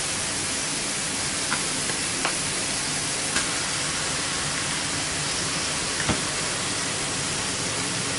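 Minced meat and onions sizzling steadily as they fry in a stainless steel pan, with a few faint clicks.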